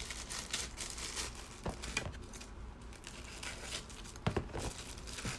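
Thin clear plastic packaging bag crinkling and rustling as it is handled, with a few louder clicks, the strongest about four seconds in.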